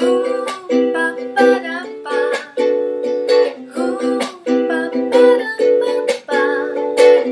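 Ukulele strummed in a steady repeating pattern (down, up, muted chunk, up, up, down) across all four strings. The chunk strokes are a down-strum damped at once by the hand, giving sharp percussive clicks between the ringing chords. The player alternates between two chords of the song's progression.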